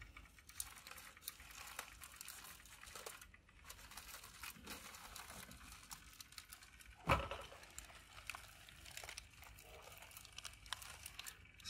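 Faint crinkling and crackling of aluminium foil as a foil-wrapped chuck roll is lifted off the grill, with one sharper knock about seven seconds in.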